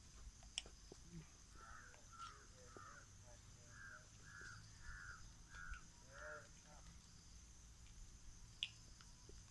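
Faint series of about eight short, harsh animal calls, roughly two a second, over a steady high-pitched drone.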